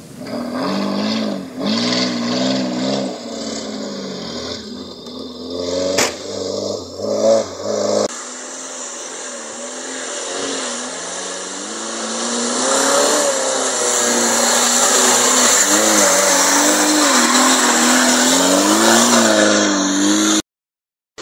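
Off-road 4x4 engine revving under load on a rough dirt track, its pitch rising and falling with the throttle. After a sudden cut about eight seconds in, an engine runs harder and gets louder, then the sound cuts out just before the end.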